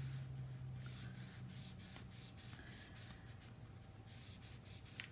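Faint, quick repeated scratchy strokes of a small colouring tool rubbed back and forth over cardstock, working ink into the paper. A small click near the end.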